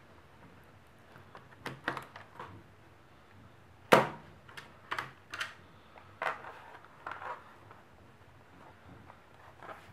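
Hard plastic clicks and knocks from an HP G62 laptop's screen assembly as it is worked loose at its hinges and lifted off the base. About nine short sharp knocks come at irregular intervals, the loudest about four seconds in.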